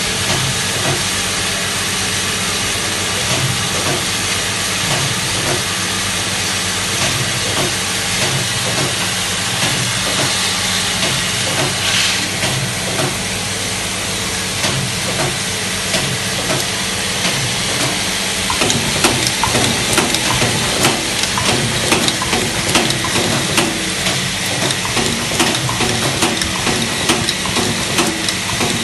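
Vibratory parts feeder running: a steady low electromagnetic hum under a constant hiss, with small plastic parts rattling and clicking along the feed track. The clicking grows busier and louder about two-thirds of the way through.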